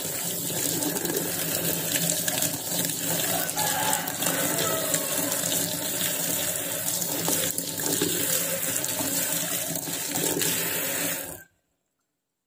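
Kitchen tap running, the stream splashing over hands as they rinse chicken stomach above a plastic colander in a steel sink. The water sound is steady and stops abruptly near the end.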